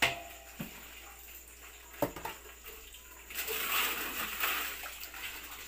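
Water splashing and sloshing in a stainless steel basin as live mud crabs are washed by hand, louder from about three and a half seconds in. A few sharp knocks in the first two seconds.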